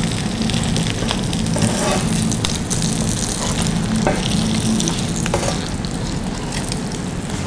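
Sea bass fillets sizzling in oil and butter in a frying pan, a steady hiss, with a few light clicks of metal tongs and a spatula against the pan as the fillets are lifted.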